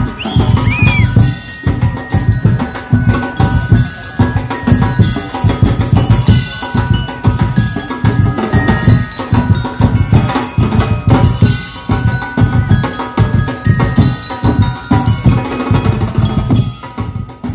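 Live percussion band playing: drums beating a fast, steady rhythm under a bell-like melody on mallet-struck percussion, the music dying away at the very end.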